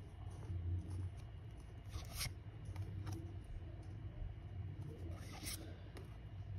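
Trading cards rubbing against each other as a card is slid off the front of a stack: two brief papery swishes, about two seconds in and again about five and a half seconds in, over a low steady hum.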